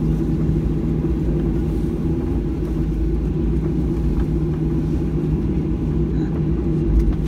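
Cabin noise of a Boeing 737-800 taxiing, its CFM56-7B engines at taxi power: a steady low rumble with a constant hum.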